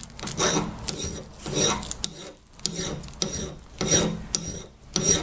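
Hand metal file rasping across the rusty steel head of an old hatchet in repeated push strokes, roughly two a second, filing the metal down.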